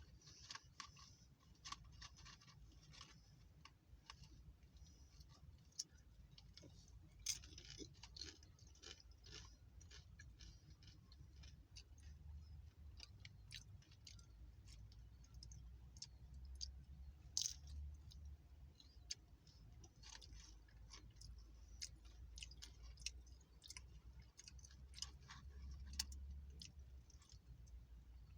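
Faint chewing and crunching of tortilla chips from nachos, with irregular crisp crunches and clicks, over a low steady hum.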